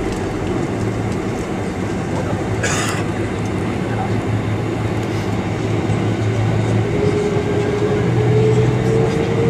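Airliner cabin noise while rolling on the ground: a steady low rumble and hum. Near the end a rising engine whine comes in and the sound grows a little louder.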